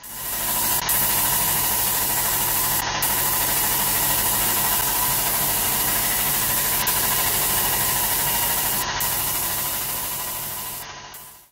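Wagner SF23 diaphragm-pump airless paint sprayer running while spraying a ceiling: a steady loud hiss from the spray gun over the even hum and whine of the pump. Fades out near the end.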